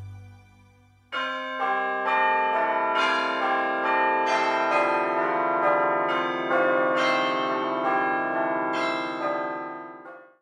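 Church bells pealing: a quick series of overlapping strikes, each ringing on into the next. They start suddenly about a second in and fade out at the end.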